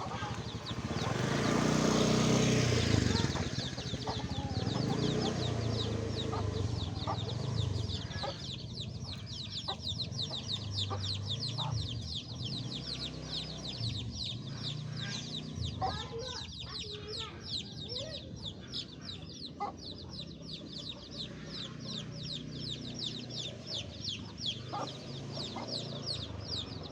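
A brood of domestic chicks peeping continuously, many short, high, falling chirps overlapping one another, the calls chicks make to their mother hen. A louder, lower sound lies beneath the peeping for the first several seconds, loudest about two seconds in.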